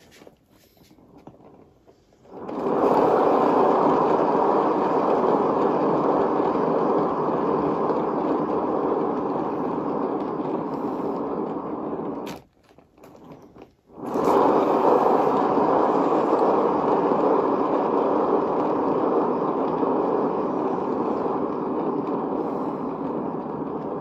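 A spinning turntable under a poured painting, giving a steady rolling rumble that sets in suddenly, slowly dies away, and cuts off about halfway through. A second spin starts it up again a second and a half later.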